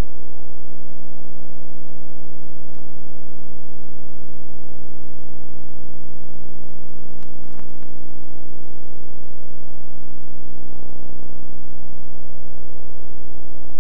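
Loud, steady electrical hum made of many evenly spaced tones that never change, with a faint click about three seconds in and another pair of clicks about seven and a half seconds in.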